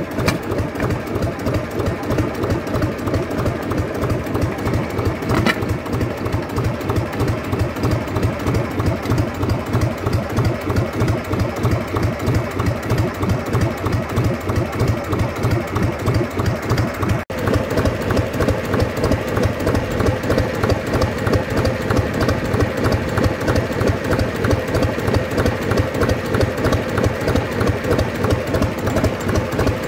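1952 Gardner 2LW two-cylinder diesel engine running steadily at low speed on its test run after an overhaul, with an even beat of firing strokes.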